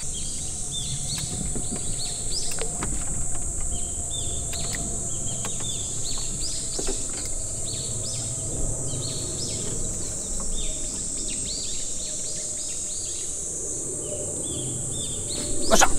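Birds calling in a long run of short, repeated, falling notes, over a steady high-pitched drone and a low rumble.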